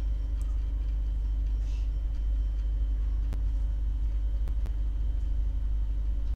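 Steady low rumble of background noise with a faint hum over it, and a few sharp computer mouse clicks scattered through it.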